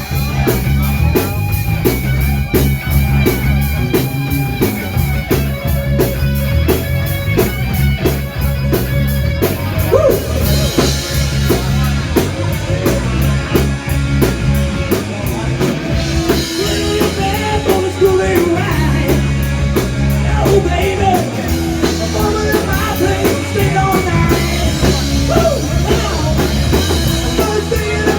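A live rock band playing an instrumental break: steady drums and bass under electric guitar, with a lead line that bends and slides in pitch from about ten seconds in.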